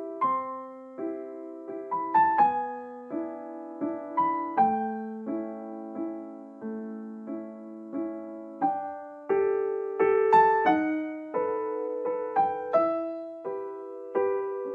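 Gentle solo piano music: single notes and chords struck a few times a second, each ringing and decaying.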